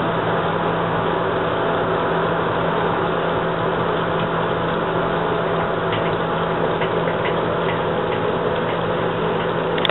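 Hunter Northshore ceiling fan running: a steady motor hum under even air noise, with a few light ticks about six to eight seconds in.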